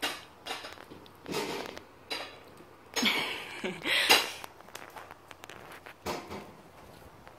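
A young Chihuahua puppy giving a series of short huffs and snorts while sniffing close at a watermelon, the loudest pair about three to four seconds in.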